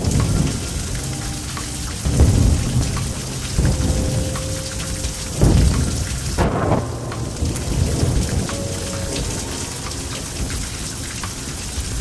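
Heavy rain pouring steadily, with thunder rumbling several times. The loudest rumbles come about two and five and a half seconds in.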